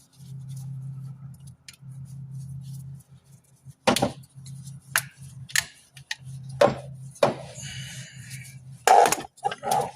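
Hand tools and metal engine parts clanking: a handful of sharp metallic knocks and clicks from about four seconds in, with a short scrape near the end, over a steady low hum.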